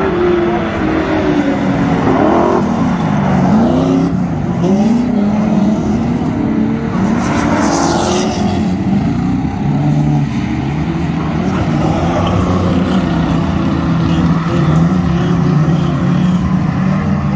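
Speedway standard saloon race car engines running hard, their pitch rising and falling over and over as the cars lap the dirt track, with more than one engine heard at once. A short rushing hiss comes about eight seconds in.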